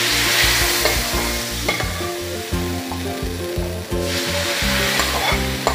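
Sambar powder fried in hot coconut oil sizzling as it is poured into hot sambar, the hiss swelling at the start and again about four seconds in, with a ladle scraping the paste out of the pan.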